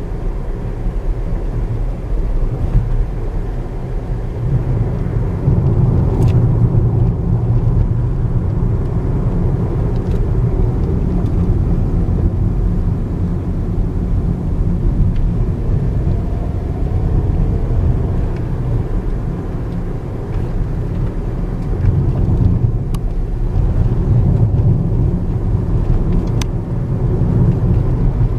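Car cabin noise while driving: a steady low rumble of engine and tyres on the road, swelling a little about five seconds in and again near the end, with a few faint clicks.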